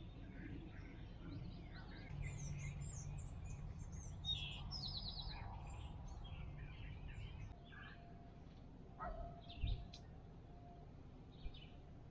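Songbirds chirping and singing, many short overlapping calls, busiest in the first half, over a faint steady low rumble. A single soft low thump comes about three quarters of the way through.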